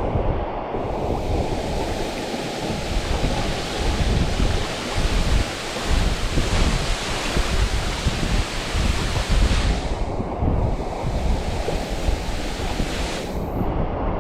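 Waterfall's falling water heard close up, a loud, steady rushing with heavy low rumble and buffeting. The treble drops away briefly a few times, about ten seconds in and again near the end.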